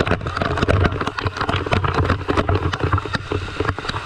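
Heavy cascade of falling water crashing into a pool and spraying straight onto the camera close up, a dense crackle of drops over a loud low rumble.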